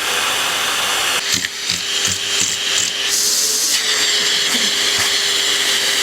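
Vacuum cleaner running steadily, a loud whooshing hiss with a steady hum; its sound shifts about a second in and again near four seconds in.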